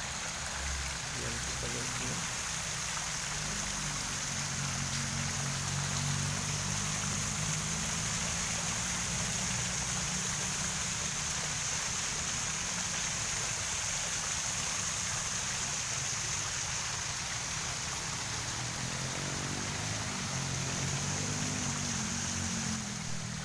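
Tiered ornamental fountain running, its water steadily splashing down the tiers into the pool, over a low steady hum.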